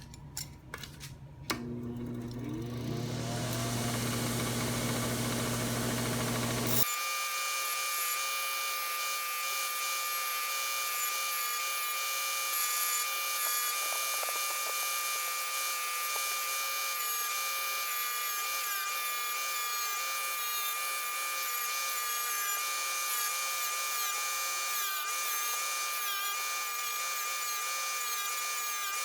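A small power tool spins up and runs steadily with a high whine, its note wavering as it works over the toolbox's metal hardware to clean it.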